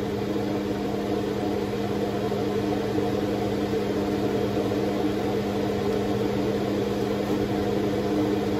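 Steady mechanical hum of a kitchen appliance motor: a low drone with several higher steady tones above it, over an even hiss.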